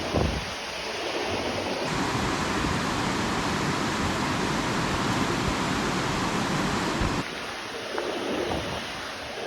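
Creek water rushing steadily over rapids, with a brief low thump just after the start.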